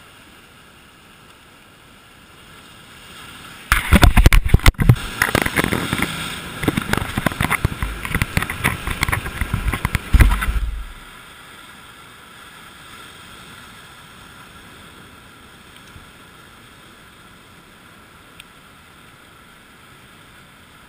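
Handling noise right on the camera's microphone for about seven seconds, with knocks, scrapes and rustling as the camera is moved and set back on the rock. Before and after it, the steady low wash of breaking surf.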